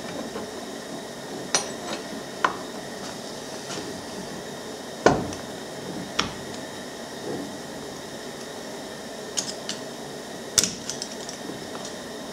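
Scattered metal clicks and clinks as the parts of a Sno-Way snow plow's DC motor are handled by hand while its brushes are worked onto the bearing. The loudest is a heavier knock about five seconds in, and a quick cluster of clicks comes near the end.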